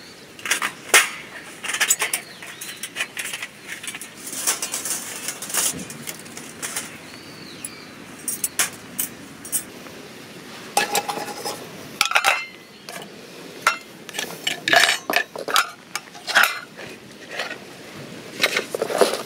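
Metal camp cookware and tableware being handled and packed away: irregular clinks and knocks of metal against metal and against the table, coming in scattered clusters.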